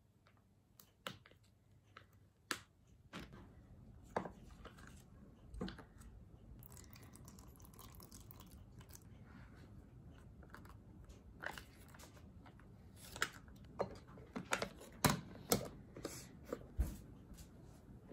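Plastic film being peeled off a packaged tofu tray, with small clicks and rustles as the tray and tofu are handled, then a cluster of sharper knocks on a wooden cutting board near the end.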